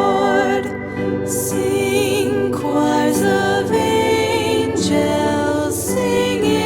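Christmas music: a melody with accompaniment, changing note about every second.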